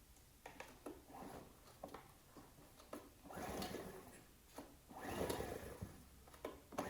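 Recoil starter cord of a Ryobi RIG1000 inverter generator being pulled a few times, turning the engine over without it firing, with rough whirring swells and clicks, the longest pulls about three and five seconds in. The engine is cranked with the carburetor bowl drain open to check that the vacuum pulse pump is drawing fuel to the carburetor.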